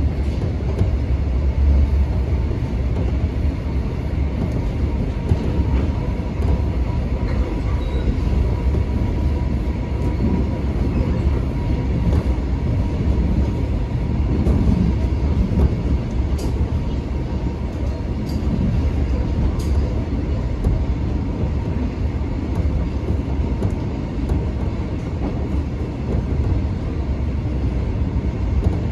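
Seoul Subway Line 1 electric train running along the track, heard from inside the carriage: a steady low rumble, with a faint thin whine through the middle stretch.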